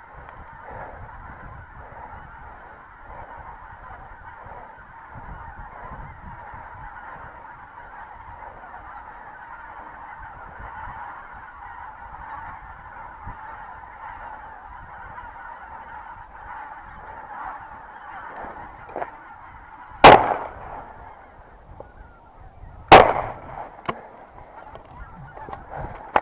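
A huge flock of greater white-fronted geese in flight, calling continuously in a dense mass of honking. About twenty seconds in, two shotgun shots ring out roughly three seconds apart, the loudest sounds, and the calling thins briefly after them before building again.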